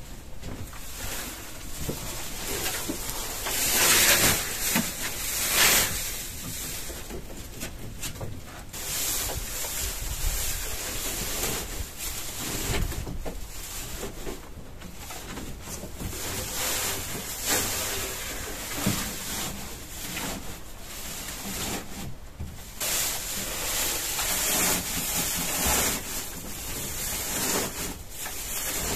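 Dry hay rustling and crackling as it is handled and pushed into wooden rabbit hutches, with louder bursts about four and six seconds in.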